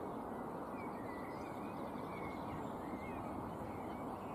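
Birds calling faintly and repeatedly over a steady outdoor noise, likely wind on the microphone.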